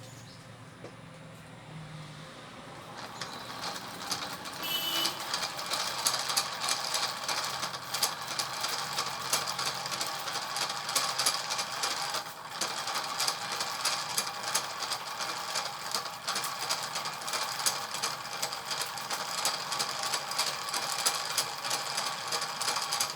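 A small machine starts running about three seconds in and keeps running steadily, with a dense rapid clatter over a few held tones.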